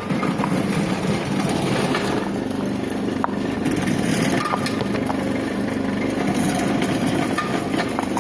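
Electric garlic-peeling machine running with a steady motor hum, with a few sharp clicks, one about three seconds in.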